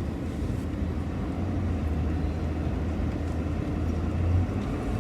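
Semi truck driving on the highway, heard from inside the cab: a steady low engine drone with road and tyre noise.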